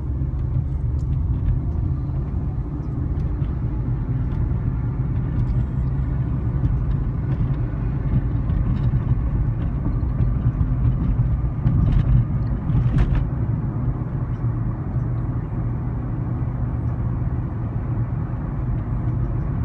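Steady low rumble of a car's engine and tyres on the road, heard from inside the moving car's cabin, swelling briefly about twelve seconds in.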